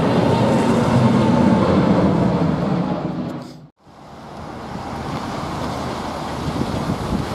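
British Airways Boeing 787-8's twin Rolls-Royce Trent 1000 jet engines, loud as it passes low overhead; the sound drops out suddenly a little over three seconds in. After that, a steadier rush of wind on the microphone with distant jet noise from an Airbus A380 on approach.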